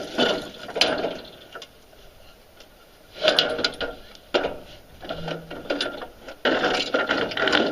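Rattling and clattering of a walk-behind lawn mower's metal deck and parts as it is handled and tipped over, in three bursts with quieter gaps between.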